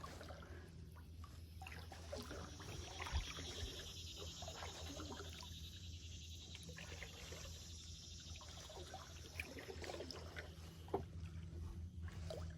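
Kayak paddle strokes, water dripping and trickling off the blades, with small splashes. A high, steady buzz sits behind them through the first half.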